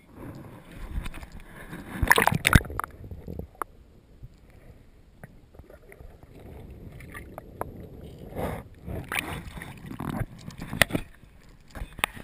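Lake water splashing and sloshing against a waterproof action camera as it dips under the surface and comes back up, with knocks on the housing and muffled gurgling while it is submerged.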